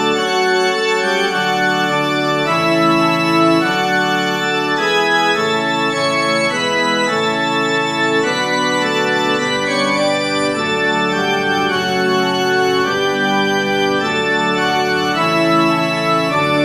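Organ playing a hymn: sustained full chords that move to a new chord about once a second.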